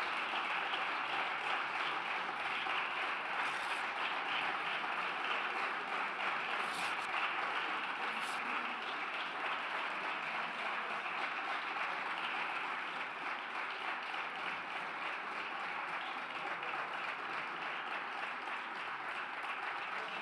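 A group of people applauding, steady clapping that eases off slightly toward the end.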